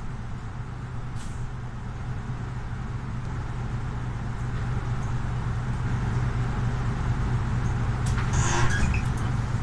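Solaris Urbino 18 IV articulated city bus heard from inside the passenger cabin while under way: its Euro 6 diesel engine drones steadily, slowly growing louder. About eight seconds in comes a short hiss of compressed air.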